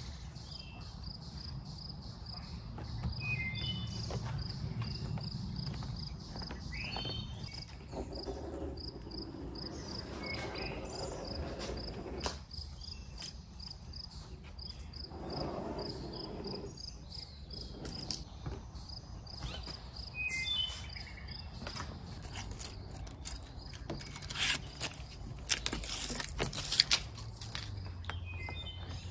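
An insect chirps in a steady, fast pulse, high-pitched, throughout, and a bird gives short chirps a few times. Near the end come several sharp rustles and taps, the loudest sounds.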